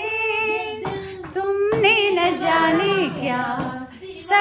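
A woman singing a Hindi film song unaccompanied, in long held notes that slide up and down, with short breaks for breath.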